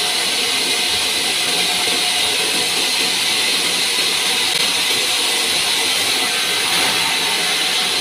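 Sawmill band saw cutting a large pine log, a loud, steady noise with a high hiss.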